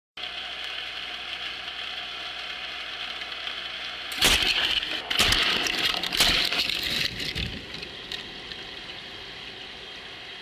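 Underwater Cardox blast: a Cardox shell of compressed carbon dioxide discharging in a drilled hole in rock. About four seconds in, a burst of dense cracking and rushing gas begins and dies away over about three seconds.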